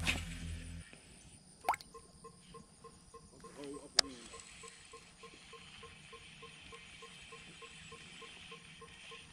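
Abu Garcia ALC BF7 baitcasting reel cast and then retrieved: a sharp click about four seconds in, then faint, even ticking of about four a second as the handle is cranked.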